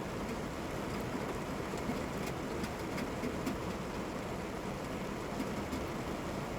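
Steady rain falling, an even hiss with occasional sharper drops ticking through it.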